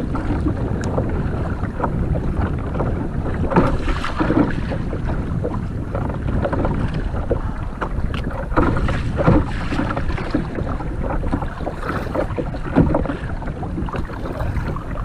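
Water rushing and splashing along a kayak's hull through a riffle, with irregular splashy paddle strokes.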